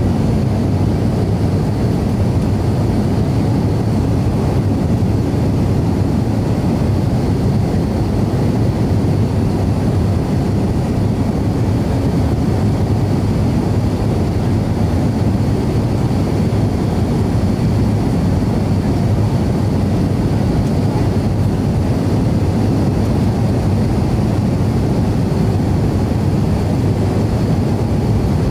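Steady cabin noise of an Avro RJ100 descending on approach with its flaps extended: an even, deep rumble from its four Lycoming LF507 turbofans and the air rushing past the airframe, with a faint high whine over it.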